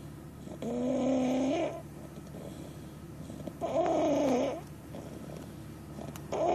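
Baby snoring: a pitched snore about a second long on each breath, repeating about every three seconds, with quieter breathing in between.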